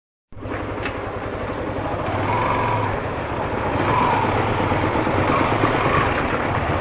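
Motorcycle engine running under way, with road and wind noise over it. It cuts in suddenly a moment after the start and grows slowly louder.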